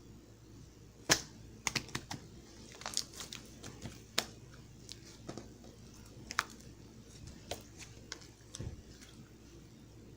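Slime being handled, giving a dozen or so irregular, sharp clicks and pops; the loudest is about a second in.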